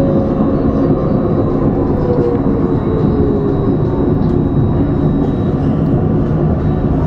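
Alstom Citadis 302 tram running, heard from the driver's cab: a steady rumble of wheels on rail. Over it, the electric drive's whine glides down in pitch during the first three seconds or so as the tram slows.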